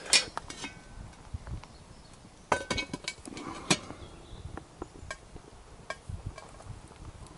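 Metal clinks and knocks as a cast-iron Dutch oven is lifted by its wire bail off a rocket stove's metal pot grate, the sharpest right at the start and a second cluster a few seconds in, then scattered light ticks.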